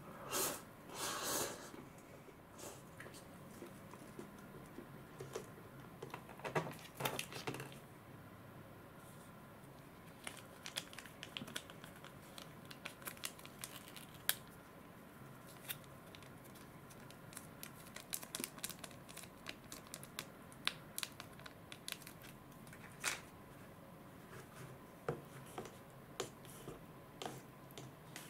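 A small foil-and-paper seasoning sachet is torn open with a few short rustles, then squeezed out over a paper cup of instant ramen. After that, plastic chopsticks stir the noodles, with many small scattered clicks and ticks against the cup.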